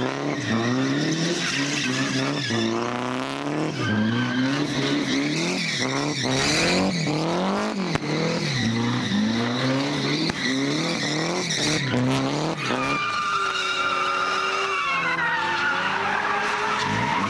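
Car doing donuts: the engine revs up and down again and again while the rear tyres screech. In the last few seconds a long, high tyre squeal slides slowly down in pitch.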